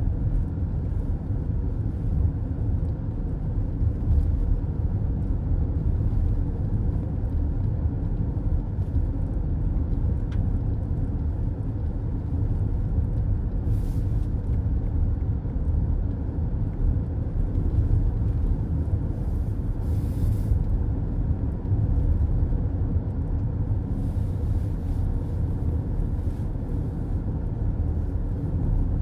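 Road noise of a car cruising on the highway, heard from inside the cabin: a steady low rumble of tyres and engine. A few brief, faint hissy swells come and go, about halfway through and again later.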